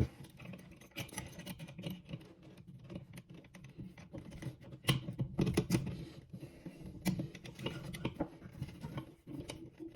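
Scattered small clicks, taps and scrapes of hands tightening the drain fittings under a sink.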